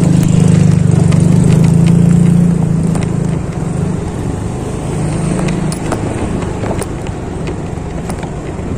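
Motorcycle engine running while riding a rough, stony dirt track: a low, steady engine hum, loudest for the first three seconds or so and then easing, with scattered clicks and rattles from the bumpy ground.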